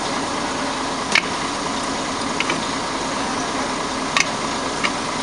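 Sharp metal clicks of a hand tool working at a truck wheel hub, two louder ones about a second in and about four seconds in, with fainter ones between, over the steady noise of an idling engine.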